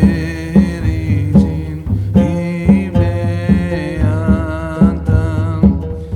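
Background music with a steady beat of about two strikes a second under a wavering melody.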